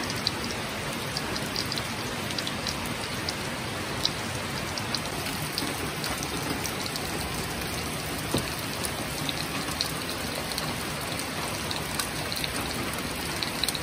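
Steady rain falling on foliage and the ground, with scattered close drops landing as sharp ticks.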